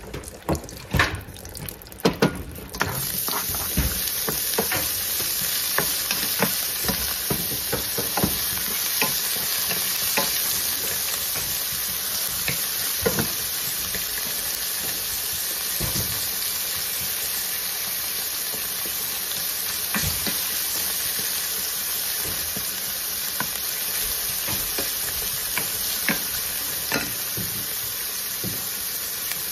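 Sliced chorizo sizzling in hot oil in a stainless steel skillet, with a wooden spoon clicking and scraping against the pan as it is stirred. A few sharp knocks come in the first seconds, then the sizzle starts suddenly about three seconds in and stays steady.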